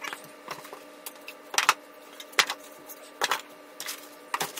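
Cardboard box and packing being handled while parts are unpacked: irregular knocks, taps and scrapes of cardboard and a thin wooden board, the loudest knock a little under two seconds in, over a faint steady hum.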